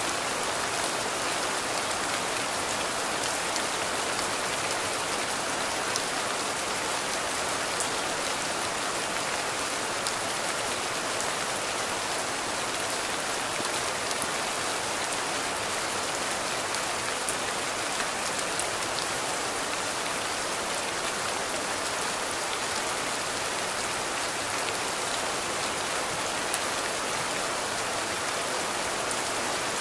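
Steady rain falling, an even hiss with occasional sharper drop ticks standing out from it.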